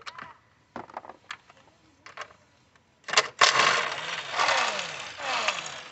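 A few light clicks of tools and parts being handled, then a small motorised tool whirring with a falling pitch in a long run from about three seconds in, as the 8 mm bolts holding the ignition coils are undone.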